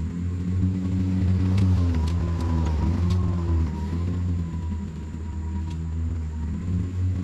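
Toro 60-volt battery-powered 21-inch self-propelled mower running as it cuts grass: a steady low hum whose pitch wavers slightly with the load, rising as the motor revs up in thicker grass.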